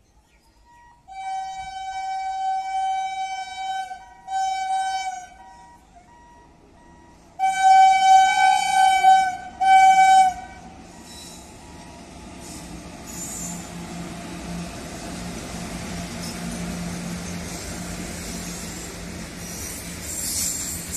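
Horn of an Indian Railways twin WAG7 electric locomotive sounding three blasts: two in the first five seconds, then a louder, longer one broken once near the middle. After that comes the rumble and clatter of the freight train rolling past, growing louder as the loaded open wagons go by.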